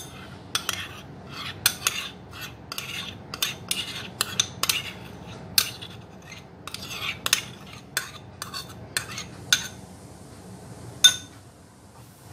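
A metal spoon clinking and scraping against a container, in a quick irregular run of strokes, as condensed milk is spooned into a bowl of whipped cream. The strokes stop about ten seconds in, and one sharp clink follows about a second later.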